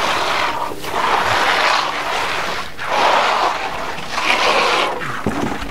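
Plasterers' steel trowels and floats sweeping across a wet stucco color coat, a scraping swish in repeated strokes that swells and fades about once a second.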